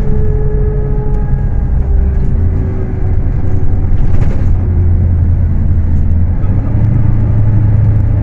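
Scania K310 bus's five-cylinder diesel engine running under way, a steady low rumble whose pitch eases off in the first few seconds and rises again near the end. There is a brief hiss about four seconds in.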